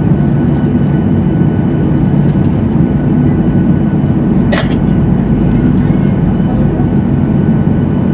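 Steady cabin noise of a Boeing 737-800's CFM56-7B turbofan engines running as the jet taxis, a low rumble with a thin steady whine above it. One brief sharp sound cuts through about four and a half seconds in.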